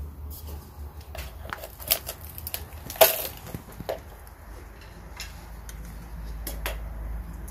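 Scattered clinks and knocks of a cooking utensil against a pot, with one sharper knock about three seconds in.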